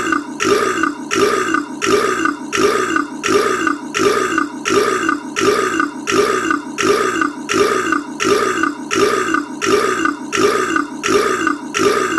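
A man's short burp, looped so that the identical burp repeats a little under twice a second in an even, unbroken rhythm.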